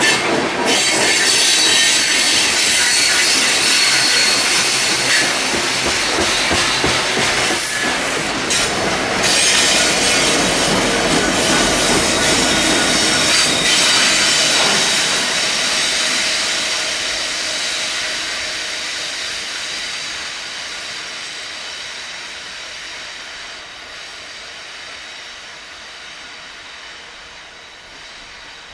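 Freight train of coal cars rolling past, with steady rumble and high-pitched wheel squeal. A rear diesel locomotive goes by about halfway through, and then the sound fades steadily as the train moves away.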